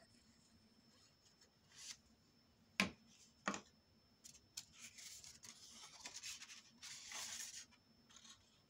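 Sheets of white cardstock being handled and slid over one another, a faint papery rustle, with a sharp tap about three seconds in and a smaller one half a second later as a piece is set down.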